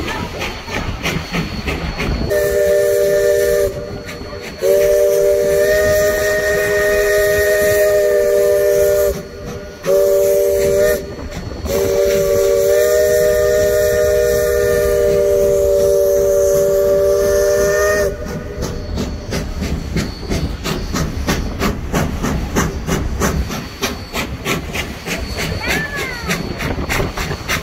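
Steam locomotive's chime whistle sounding a chord in four blasts: short, long, short, long, the last ending about two-thirds of the way through. Under it, and continuing after, is the rhythmic clatter of the train running.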